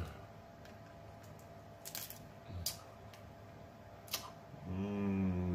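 A few sharp clicks and snaps as snow crab leg shell is picked apart with the fingers and the meat eaten. Near the end a man starts a long, low, steady hum of enjoyment, "mmm", with his mouth full.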